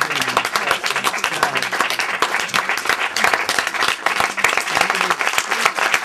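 Audience applauding steadily, with a few voices talking under the clapping.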